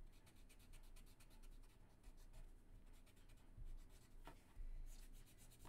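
Faint scratching of a pen drawing lines on paper, in many short strokes.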